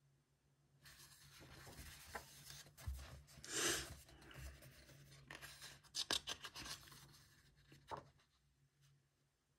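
Pages of a large paper colouring book being handled and turned: paper rustling, with one loud swish as a page flips over about three and a half seconds in. Then a few sharp light clicks and softer rubbing as a hand smooths the spread flat.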